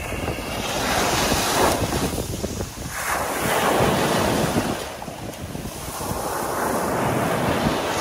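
Small ocean waves breaking on a sandy beach right at the microphone, with three surges of foamy hiss that rise and fall as each wave breaks and washes up the sand. Wind rumbles on the microphone underneath.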